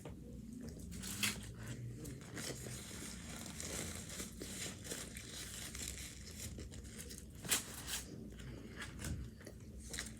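Eating a taco close to the microphone: crackling, crunchy bites and chewing, with a few sharper crunches.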